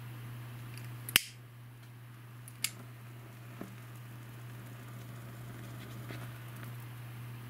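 A lighter clicking sharply twice, about a second and a half apart, then once more faintly, as it is struck to set the end of a fluorocarbon fishing line alight. Under it runs a steady low hum, the camcorder's own motor-like noise in dim light.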